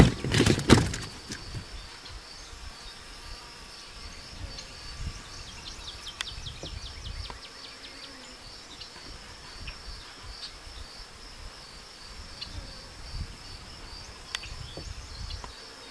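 Insects chirping outdoors in summer heat: a steady, high-pitched, evenly pulsing trill, with a run of rapid clicks about five to seven seconds in, over a faint low rumble. A brief loud noise comes at the very start.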